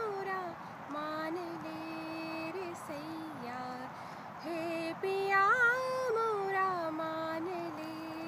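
A woman singing a Hindi song unaccompanied, holding long steady notes joined by small ornamental glides and turns, with brief breath pauses.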